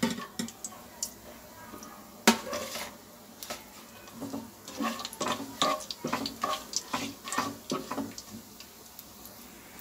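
A plastic slotted spatula stirring coconut pieces in ghee in a nonstick frying pan, clicking and scraping against the pan, with one louder knock about two seconds in and a run of light clicks after the middle.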